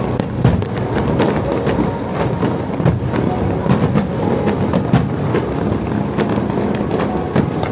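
Aerial fireworks bursting in a dense, continuous barrage: deep booms running together under many sharp cracks and a rain-like crackle.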